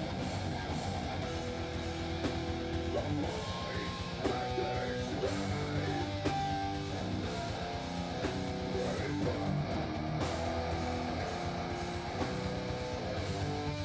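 Live metal band playing: distorted electric guitar and bass guitar over fast, driving drums.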